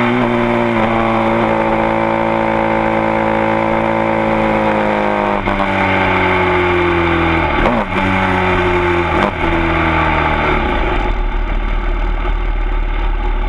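Supermoto motorcycle engine heard from the bike, winding down as it slows, its pitch falling steadily with a few short breaks for gear changes. About eleven seconds in it settles to a low, rough idle as the bike rolls slowly.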